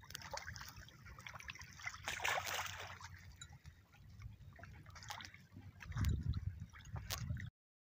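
Water splashing and trickling as a patí catfish is let go back into the river. A low rumble comes near the end, then the sound cuts off suddenly.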